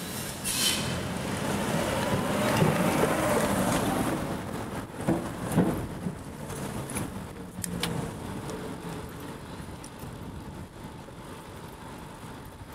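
Road traffic: a motor vehicle passes close by, its engine and tyre noise swelling over the first few seconds and then fading. A couple of sharp knocks come about five seconds in.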